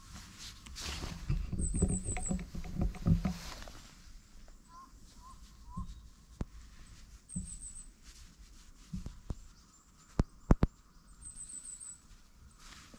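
Rustling and rubbing of a hand and jacket sleeve stroking a cat's fur close to the mic, densest in the first few seconds. Later come a few soft knocks and two sharp clicks a fraction of a second apart, the loudest sounds, about ten seconds in.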